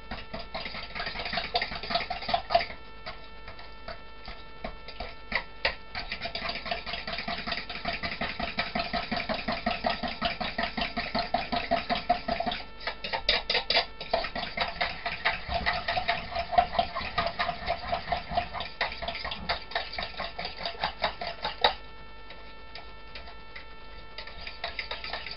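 Vegan dressing being beaten by hand in a small stainless steel jug: rapid, even strokes of a utensil clicking and scraping against the metal, with the jug ringing. The beating pauses briefly about three seconds in and again near the end.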